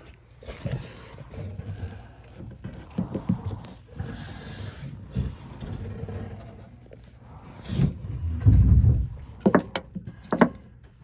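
Handling noise from an inspection camera rubbing and scraping against wood and drywall surfaces. A heavy low thump comes about eight and a half seconds in, followed by a few sharp clicks.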